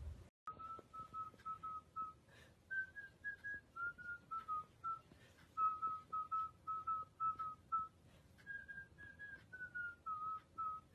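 A person whistling a tune in quick, short, clear notes. The notes rise for a few steps, fall back and start the phrase over.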